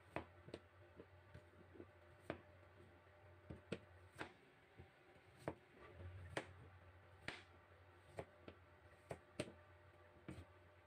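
Kitchen knife slicing through chunks of firm raw vegetable, the blade tapping down onto a plastic cutting board in sharp, irregular clicks about once or twice a second.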